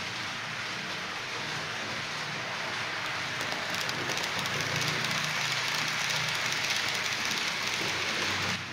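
H0-scale model train, a Vectron locomotive hauling tank wagons, rolling along the track: a rushing rattle of metal wheels on rails with fine rapid clicks. It grows louder as the wagons pass close by and drops away suddenly near the end.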